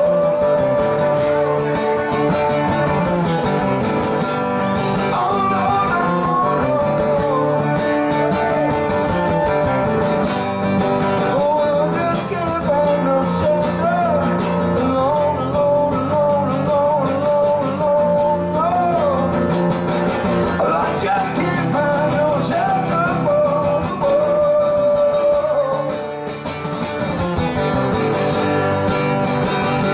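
Live music: a man singing over a strummed acoustic guitar, amplified through a PA.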